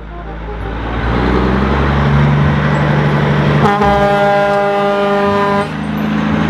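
A vehicle rumble that grows louder, then a long horn blast about three and a half seconds in, held for about two seconds.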